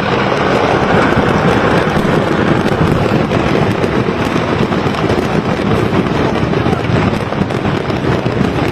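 Dense, continuous crackling of many fireworks and firecrackers going off at once, without pause, set off by a fire in a fireworks factory.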